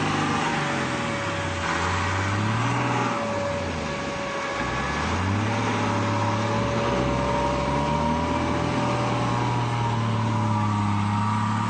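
Off-road 4x4 engine revving hard in mud, its pitch climbing and dropping several times as the wheels spin, with a steady high whine underneath.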